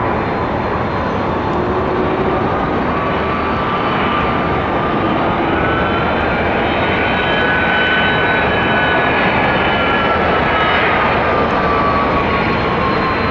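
Jet engines of an ABX Air Boeing 767-200 freighter, a loud steady roar with a whine that rises over the first several seconds and falls back near the end.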